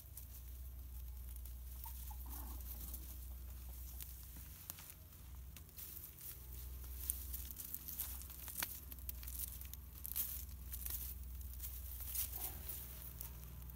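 Rustling, crackling and snapping of grass and dry stems underfoot as feet push through them. The crackles are sparse at first and get much busier about halfway through.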